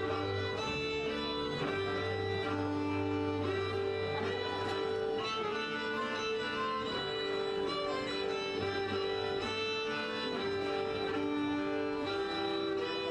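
Folk string band music: violins playing over sustained bass notes, with plucked strings, continuous and at an even level.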